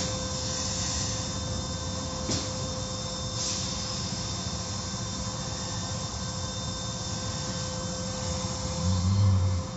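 Automatic car wash equipment running: a steady hiss of water and foam spraying over the vehicle, with a constant machine hum underneath. A couple of faint clicks come in the first few seconds, and a louder low rumble comes just before the end.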